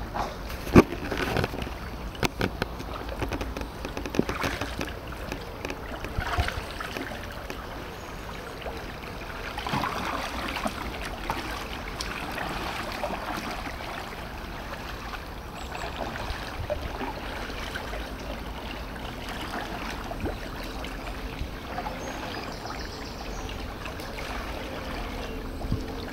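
Kayak paddles dipping and splashing as two sit-on-top fishing kayaks are paddled along a slow river, with water sloshing and gurgling. Scattered sharp knocks and clicks come in the first several seconds.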